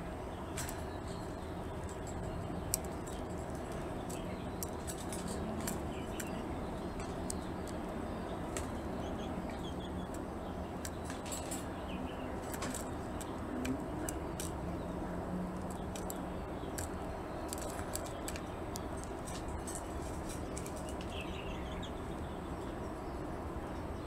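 Male zebra finch feeding newly hatched chicks in a wicker nest: scattered light clicks and rustles from the nest and a few faint high chirps, over a steady background hum.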